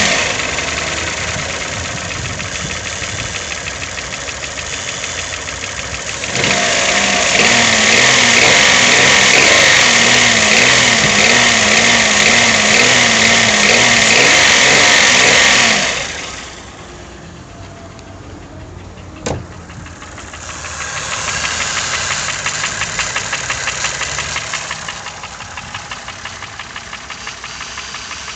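Toyota 1KR-FE three-cylinder petrol engine running with a knock whose cause is unknown, even with a new timing chain, tensioner and chain guide. It is louder for about ten seconds in the middle, then quieter, with one sharp click near the end.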